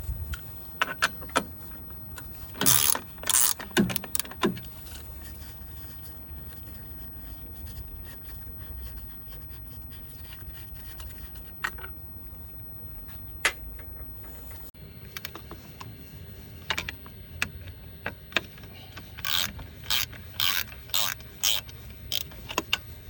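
Metal hand tools working on an engine: scattered sharp clicks and short scraping, ratcheting bursts in clusters, over a low background hum.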